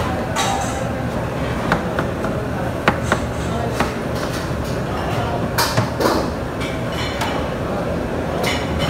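Scattered clicks and crinkles of plastic-gloved hands handling and folding samosa pastry sheets and the steel filling bowl, over a steady background hum.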